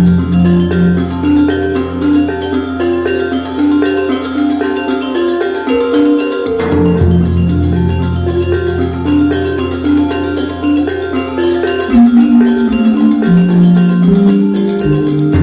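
Instrumental music: a melody of short notes over a bass line, with a steady beat.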